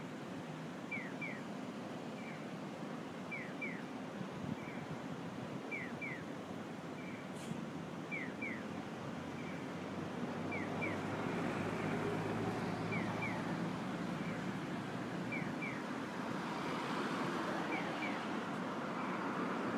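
Electronic chirping of a Japanese pedestrian crossing signal: a pair of short falling chirps answered by a single one, repeating about every two and a half seconds. Street traffic noise runs underneath and grows louder about halfway through.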